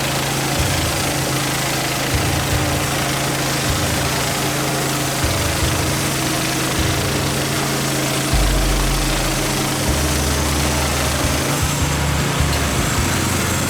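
Gas engine of a Norwood manual sawmill running steadily. Its deeper note changes a few times from about eight seconds in.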